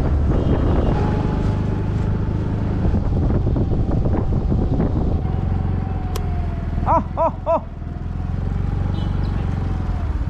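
A Yamaha scooter's small engine running steadily while riding, with a thin steady whine over the low rumble. About seven seconds in, three quick beeps sound in a row.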